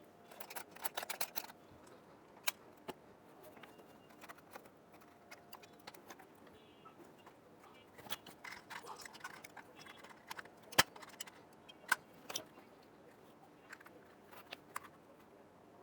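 Clicks, taps and light metallic rattling as an AMD Ryzen 9 CPU cooler is handled and fitted onto a motherboard. There is a short patch of rattling about a second in and a few sharp single clicks, the loudest just before the two-thirds mark.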